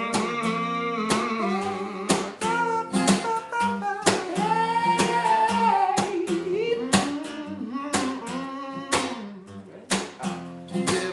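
Acoustic guitar playing a gospel-style instrumental break, chords strummed in sharp strokes under a bending melodic line.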